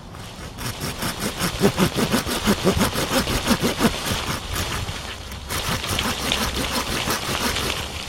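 Hand saw cutting through a branch of wood in quick, even back-and-forth strokes, with a short pause about five seconds in.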